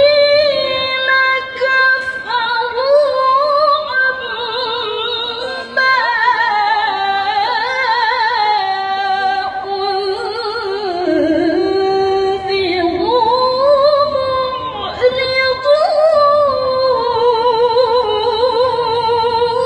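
A female Quran reciter (qari'ah) chanting in melodic tilawah style: a single solo voice sings long, ornamented phrases with a fast wavering vibrato and pauses briefly for breath between phrases.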